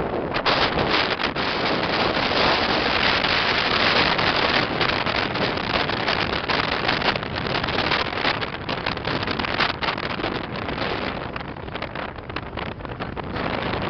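Wind rushing and buffeting against the microphone in a moving car, a loud, dense rush with rapid fluttering that eases off somewhat near the end.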